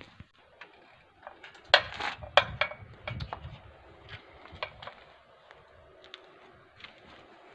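Irregular light clicks, knocks and metallic clinks, with a cluster of louder ones about two seconds in.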